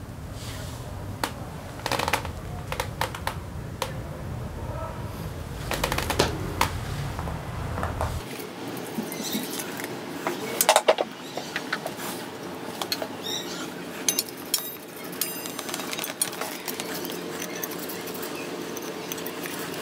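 Small metal starter-motor parts clicking and clinking as they are worked with pliers, handled and set down, with scattered light knocks and a louder clatter near the middle.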